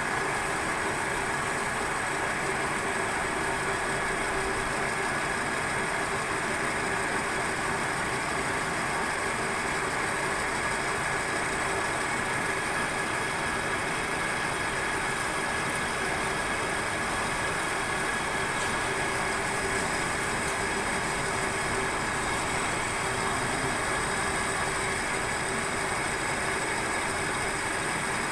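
Metal lathe running steadily, spinning a rusty bushing for cleaning, with an even hum and a high whine that do not change.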